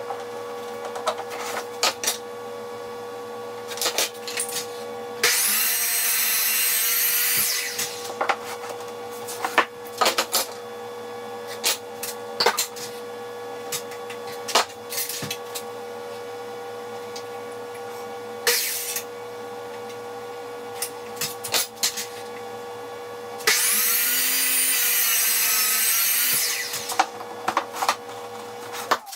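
Woodworking shop sounds: many short knocks and clicks of wood and tools being handled over a steady hum, with two loud runs of a power tool of about two to three seconds each, one about five seconds in and one near the end.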